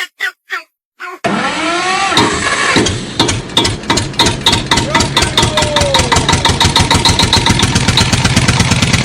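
An engine starting: a few short stuttering bursts, then about a second in it catches and runs loudly with a fast pulsing beat, the pitch sweeping up and down at first. It cuts off suddenly at the end.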